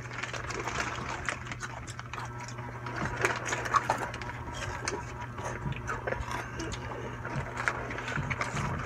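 Snack eating: crunching chips and crinkling plastic snack wrappers, many small crackles throughout. A steady low hum runs underneath.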